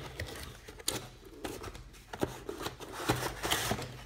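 Cardboard toy box being opened and handled: irregular scrapes, light knocks and rustling of the cardboard flaps and lid.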